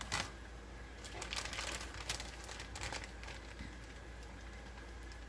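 Light clicks and scraping of a spoon scooping ricotta filling from a container and spreading it into a stuffed pepper, busiest in the first three seconds.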